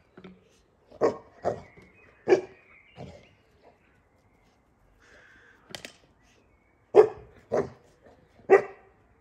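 Boerboel puppy giving about eight short, sharp barks in two bursts, a few seconds apart.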